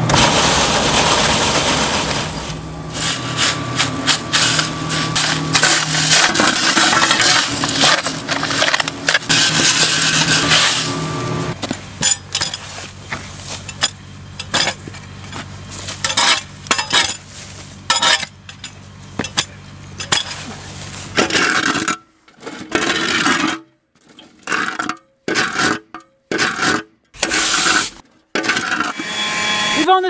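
A steel pitchfork scraping and scooping packed dirt and spilled grain off a concrete pad, in many short, sharp scrapes and clinks. A steady machine hum runs under the first ten seconds or so. In the last several seconds the scraping comes in short bursts broken by near silence.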